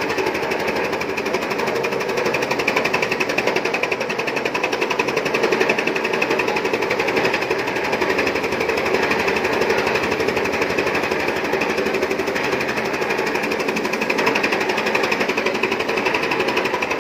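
Mini chaff cutter running and chopping green fodder grass as it is fed in: a steady, fast mechanical clatter.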